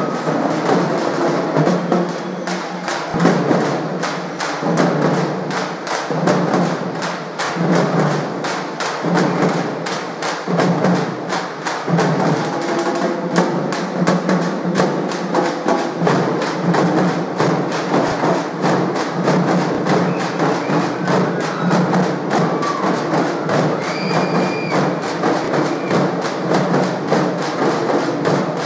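Percussion-heavy music with rapid, dense drumbeats over a continuous low tone.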